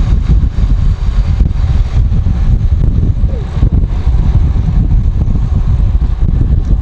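Wind buffeting the microphone on a moving bicycle: a loud, uneven low rumble.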